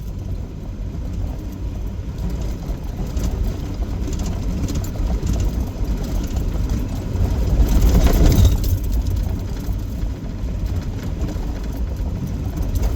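A vehicle being driven: engine and road rumble, steady, with a louder swell about eight seconds in.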